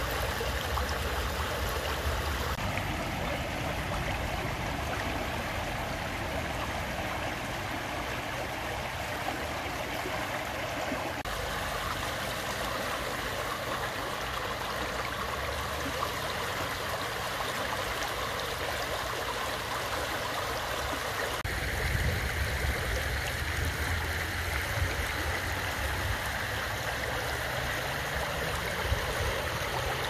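Fast, shallow stream rushing over stones: a steady hiss of running water. A low rumble sits under it at the start and again from about two-thirds of the way in.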